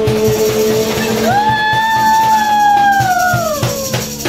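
Live acoustic band: strummed acoustic guitar and a second guitar over a steady cajón beat, with a man singing a long held note that slides up high about a second in and glides back down near the end.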